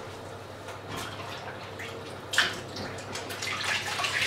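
A sharp knock about two seconds in, then water running and splashing from a kitchen tap for about two seconds.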